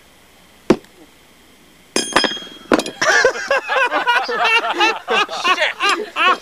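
A sharp click, then a metallic clink with a short ring and a few quick rattling clicks about two seconds in, followed by people laughing.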